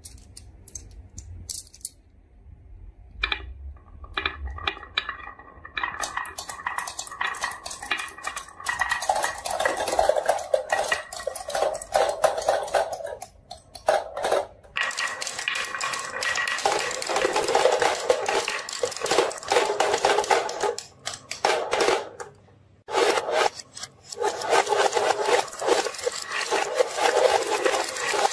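Marbles rolling and clattering down wooden marble-run tracks, clicking against the wooden side rails and popsicle-stick baffles. A few scattered clicks come first, then a dense run of clatter with a couple of brief pauses.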